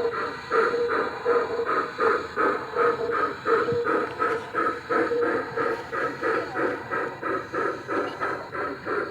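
Bachmann K27 model steam locomotive running with steady, even chuffing, about three to four beats a second.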